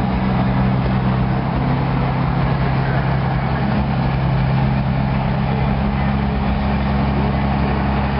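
Semi truck's diesel engine idling steadily, a low, even hum that holds one pitch without revving.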